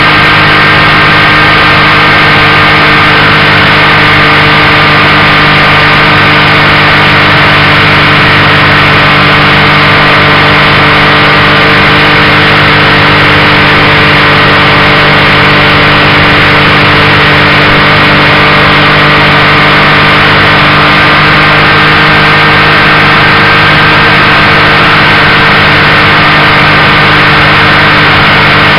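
Motorcycle engine running at a steady cruising speed, its pitch holding even, with rushing wind noise over it.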